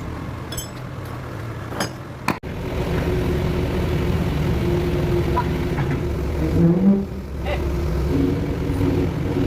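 An engine running steadily with a low rumble and a faint wavering whine, louder after a brief dropout about two and a half seconds in.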